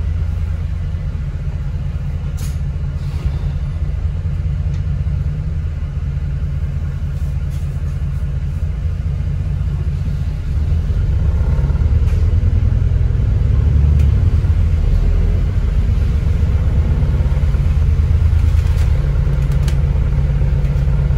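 Alexander Dennis Enviro 400 MMC double-decker bus in motion, heard from inside: a steady low rumble of engine and road noise that grows louder about halfway through.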